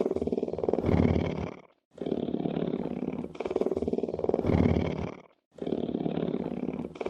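A big cat purring: a low, rapidly pulsing rumble that rises and falls with its breathing, in and out, in even cycles of about three and a half seconds. A short silence falls between cycles, at about two seconds in and again at about five and a half seconds in.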